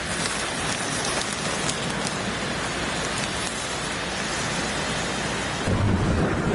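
Steady hiss of rain pattering on the tent fabric, with faint fine ticks. About six seconds in, a louder low rumble of wind gusting against the tent joins it.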